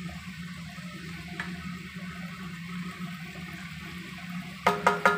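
Cucumber pieces frying in a nonstick pan, a steady sizzling hiss over a low hum. Near the end the spatula knocks sharply against the pan a few times as the pieces are stirred.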